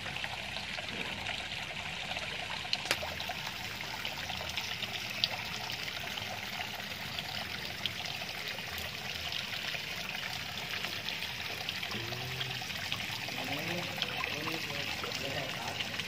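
Water trickling and splashing steadily into a garden koi pond, a continuous even wash flecked with many small drips.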